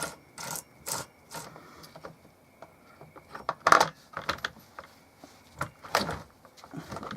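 Scattered clicks and knocks of hand tools and parts being handled while a chainsaw is put back together. The sharpest knock comes a little over three and a half seconds in, with another strong one near six seconds.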